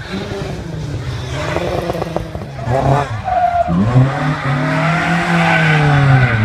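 Mk2 Ford Escort rally car's engine revving hard while its rear tyres spin and squeal in a smoky slide. The engine note climbs sharply about four seconds in, holds high, and drops right at the end.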